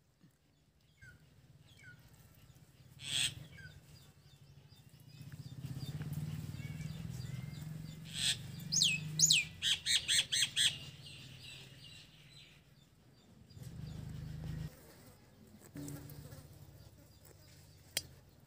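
Small birds chirping: a few faint falling chirps early on, then about eight seconds in some loud calls sweeping down in pitch and a quick run of sharp chirps. A low hum rises and falls underneath, with a couple of single clicks.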